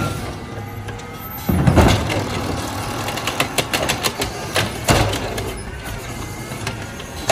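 Automated side-loader garbage truck emptying a recycling cart. About a second and a half in, the engine speeds up to drive the hydraulic arm as it lifts the cart. This is followed by a run of clattering knocks as the cart is tipped and shaken out over the hopper, the sharpest bang about five seconds in.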